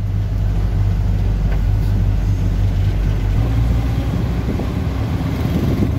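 Car engine and road noise heard from inside the cabin while driving: a steady low rumble.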